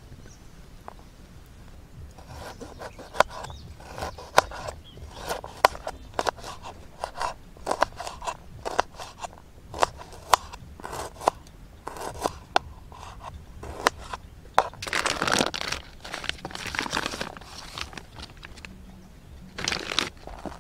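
Knife chopping green beans on a wooden cutting board: a run of sharp, irregular knocks with a crunch, followed by a few longer scraping sounds across the board.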